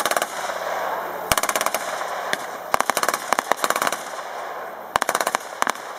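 Machine gun firing blank rounds in short, rapid bursts, about four bursts in all.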